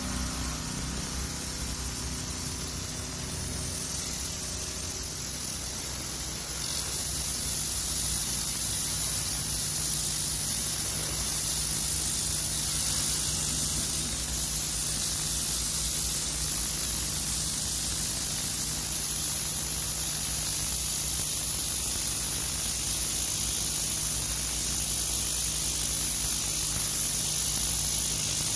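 DeWalt 3800 psi pressure washer's turbo nozzle blasting water onto concrete: a loud, steady spray hiss. The washer's engine hums steadily underneath.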